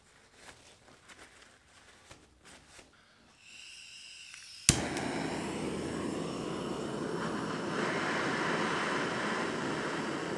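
Faint scratching as a copper pipe joint is cleaned, then gas hissing from a hand-held cartridge blowtorch, a sharp pop as it lights about four and a half seconds in, and the torch flame's steady rushing as it heats the joint to melt the solder-flux paste.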